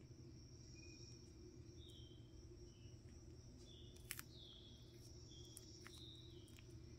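Near silence with a steady low hum. Over it come faint crisp crackles and a few short high squeaks as a Hermann's tortoise bites and tears lettuce leaves, the clearest crackle about four seconds in.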